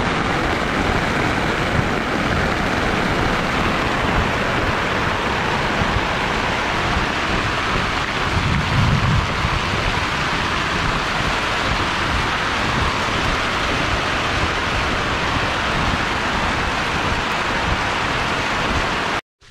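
Heavy rain pelting a Coleman nylon tent, heard from inside as a loud, steady hiss, with a brief low rumble about halfway through.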